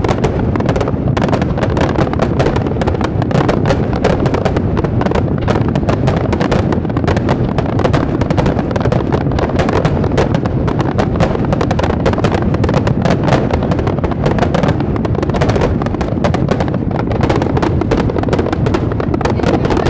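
Aerial fireworks display at full barrage: dense, rapid bursts and crackle piling on one another without a break.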